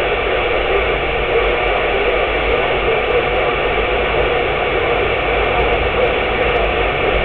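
CB radio on channel 6 hissing with steady static under skip conditions, a strong incoming signal holding the meter well up into the red.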